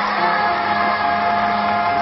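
Children's choir singing, holding long sustained notes.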